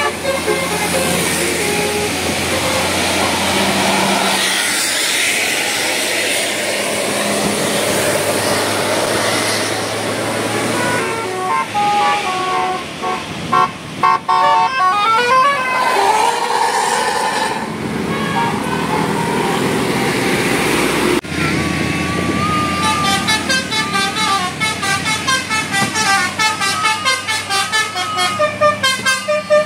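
Indonesian tour bus 'telolet' horns playing quick multi-note tunes in the Basuri style, the notes stepping rapidly up and down, with bus and street noise beneath. The sound changes abruptly about 21 seconds in, where a new horn sequence begins.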